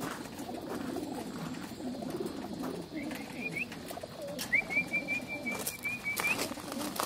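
Crated racing pigeons cooing in a low, continuous murmur. A thin, higher chirping trill from another bird comes twice in the middle, and a few knocks near the end come from the mesh crates being handled.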